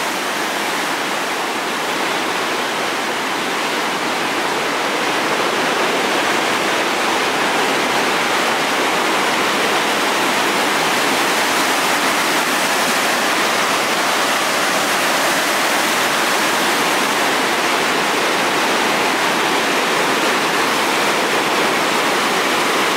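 Loud, steady rush of a river in flood, its churning brown whitewater swollen by heavy rain. It grows a little louder a few seconds in.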